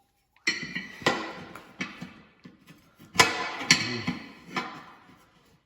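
A series of sharp metal knocks with a short ringing decay, irregularly spaced about half a second to a second apart, from steel tire bars working a tight implement-tire bead onto its rim by hand.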